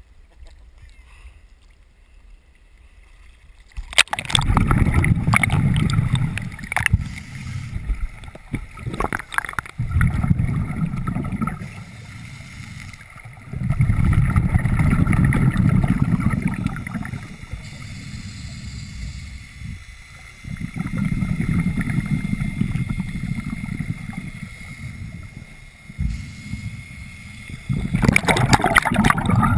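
Scuba diver's exhaled bubbles and regulator breathing, heard underwater through a camera housing: a low bubbling rush in bursts of a few seconds that repeat about every five to six seconds, starting about four seconds in.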